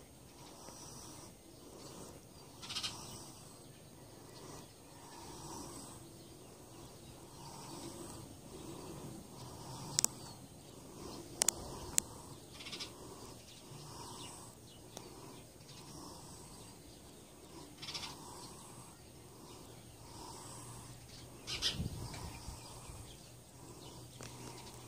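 An animal calling softly, over and over, about once a second. A few sharp clicks come around the middle, and a thump comes near the end.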